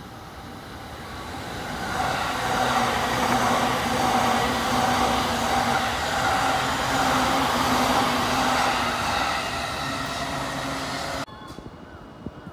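Electric commuter train running past close by: the rumble of wheels on rail, with a steady hum, builds over the first couple of seconds and holds loud, then cuts off suddenly near the end.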